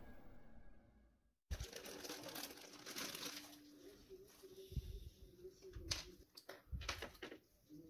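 Plastic bags and bubble wrap crinkling and rustling as resin figure parts are unpacked by hand, with a few sharp clicks as parts are handled and set down on the tabletop. A fading intro sound and a brief silent gap come first.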